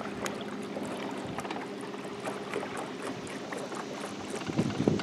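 Electric bow-mounted trolling motor humming steadily as a small fishing boat moves slowly across the lake, with water and wind noise around it. A gust of wind buffets the microphone near the end.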